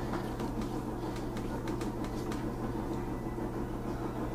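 A steady low hum, with a series of faint clicks and scrapes in the first couple of seconds as a knife is worked into the top of a pumpkin's rind.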